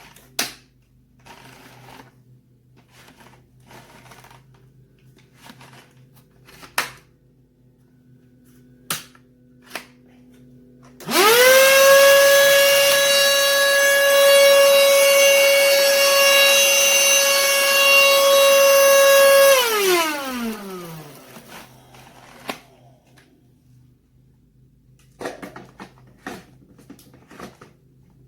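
Black+Decker Dustbuster Pivot cordless handheld vacuum switched on: its motor spins up quickly to a steady high whine, runs for about eight seconds, then winds down after it is switched off. Sharp clicks and handling knocks come before and after.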